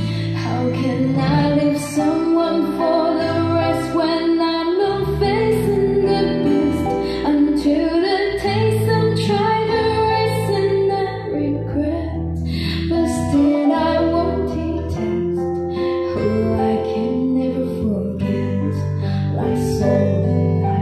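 A song with a female vocal over a steady bass line, played back through Polk Audio LS-50 floor-standing loudspeakers.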